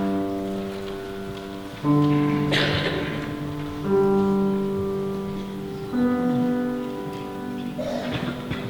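Piano playing an introduction of four slow, sustained chords, one about every two seconds, each struck and left to fade.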